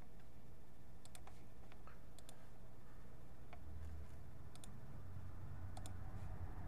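Vinyl record surface noise as the stylus plays on past the end of the song: scattered sharp clicks and pops over a steady low hum, the hum growing louder about halfway through.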